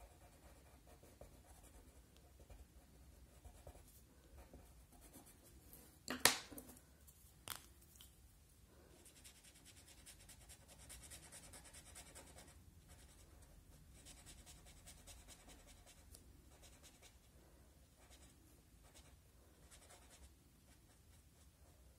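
Blending pen rubbing over watercolour paper, a faint scratching, with a sharp click about six seconds in and a smaller one a second and a half later.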